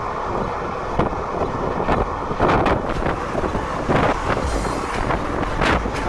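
Passenger train running along the track heard from an open window or door, with wind buffeting the microphone in uneven gusts.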